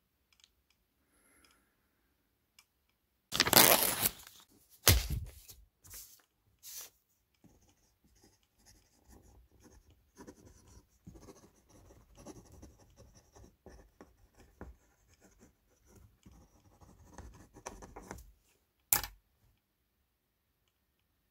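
Pen scratching across paper in steady writing strokes for about ten seconds. Before it, about three seconds in, comes a loud rustle followed by a few short knocks, and near the end there is one sharp click.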